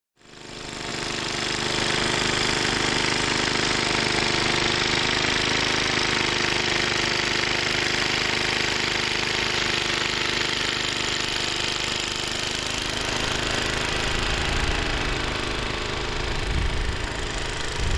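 Small gasoline snow blower engine running steadily, fading in at the start, with a broad hiss over its hum.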